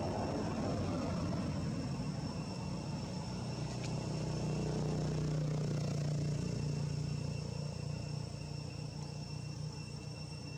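Insects, crickets or cicadas, keep up a steady high-pitched drone throughout, while a motor vehicle's engine rumbles in the background, growing to a steady low hum around the middle before easing off.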